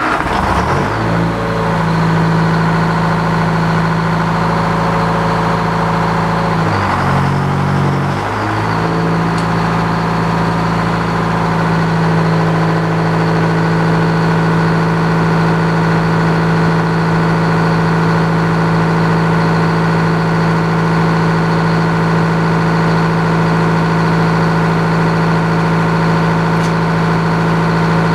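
Engine driving an old Frick sawmill, running at a steady speed. Its pitch sags briefly about seven seconds in, then comes back up.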